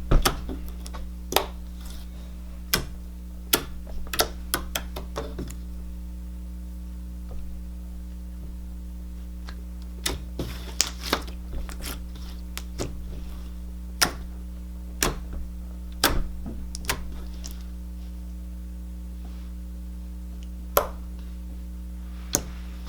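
Slime being squeezed, stretched and poked by hand, giving irregular sharp clicks and pops as air pockets burst, over a steady electrical hum.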